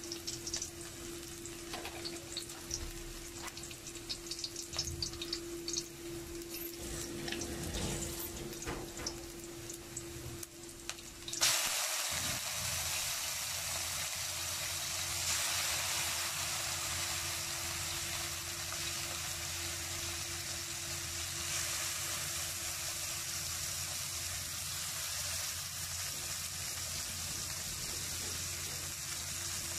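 Chopped garlic and onion sizzling quietly in oil in a wok, with small crackles. After about eleven seconds, liver goes into the hot oil with a sudden burst, and a louder, steady sizzle follows. A steady hum runs underneath throughout.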